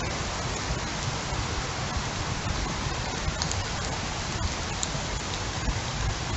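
Heavy rain falling steadily in a windstorm, a constant hiss with a few scattered drop ticks and a low rumble of wind underneath.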